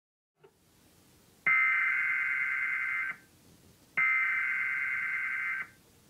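Emergency Alert System SAME header: two bursts of rapid digital data tones, each about a second and a half long and a second apart, played over a TV set. They mark the start of a test tornado warning being relayed.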